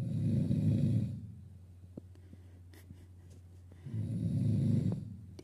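A sleeping man snoring very loudly: two long, rough snores about four seconds apart.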